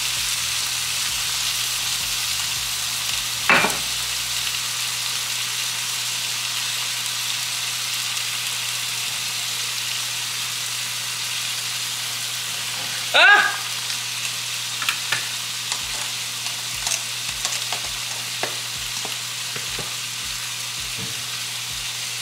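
Two steaks sizzling steadily in a griddle pan on a gas burner. A short sharp sound comes about 13 seconds in, followed by a scatter of light ticks.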